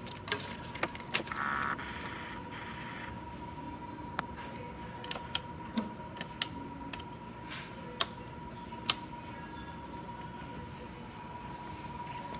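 Scattered sharp clicks and a brief whir lasting a second or two, about a second in, over a faint steady high whine, from switches and electrics being worked on a 2007 Triumph Daytona 675 that will not start.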